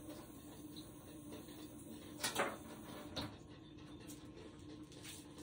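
Hands being washed and wiped at a kitchen sink: two short noisy rustles, about two and three seconds in, over a faint steady hum.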